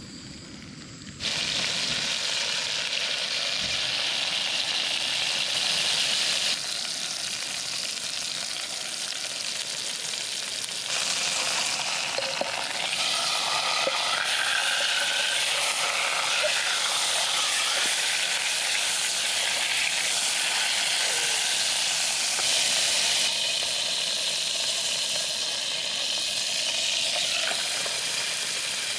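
Sirloin and lamb steaks sizzling steadily in a pan over a campfire. The sizzle starts abruptly about a second in and steps up and down in level a few times.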